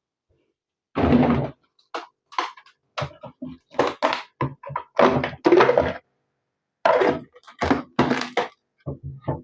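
Irregular thunks and knocks, about a dozen in a row, from frozen food packs and the freezer being handled as food is taken out.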